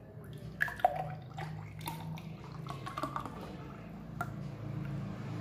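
Thick beetroot milkshake poured from a mixer jar into a tall glass, splashing and dripping as the glass fills, with a couple of sharp ticks about a second in.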